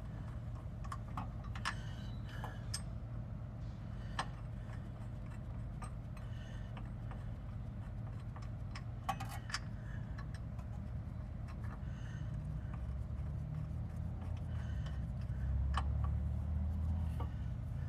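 Scattered light metallic clicks and taps of hand tools and brake parts being handled during rear hub reassembly, irregular rather than rhythmic, over a steady low hum. A low rumble swells near the end.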